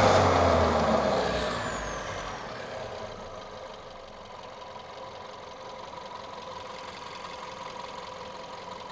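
VW Golf 1.2 turbo petrol engine falling back from a throttle blip, its revs and a high whine dying away over the first few seconds, then idling steadily.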